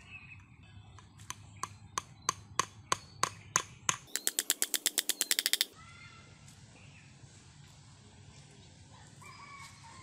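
Small hammer striking bamboo, about three sharp knocks a second from about a second in, then a fast run of rapid strikes lasting about a second and a half that stops abruptly near the middle.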